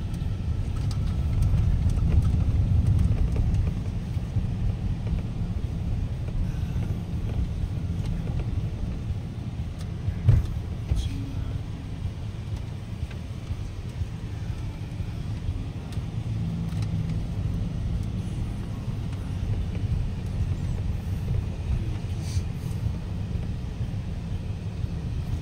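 Road noise inside a moving car: a steady low rumble of tyres and engine, louder for the first few seconds, with one sharp knock about ten seconds in.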